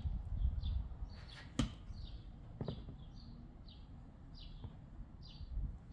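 A bird chirping over and over, a series of short, falling high chirps less than a second apart, with one sharp click about one and a half seconds in.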